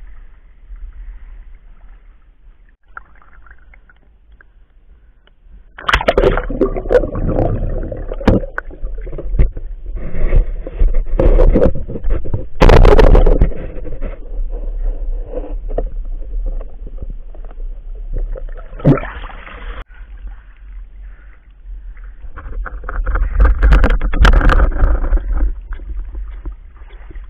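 Water gurgling and sloshing against a camera held underwater, with bubbles and repeated knocks and scrapes. It starts suddenly about six seconds in as the camera goes under.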